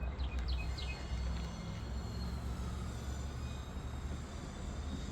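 Outdoor ambience: a steady low rumble with insects droning faintly and a few quick bird chirps near the start.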